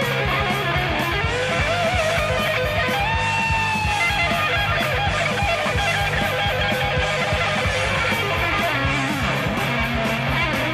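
Heavy metal band playing an instrumental passage: an electric guitar lead with sliding, bending notes and a held note about three seconds in, over driving drums and bass.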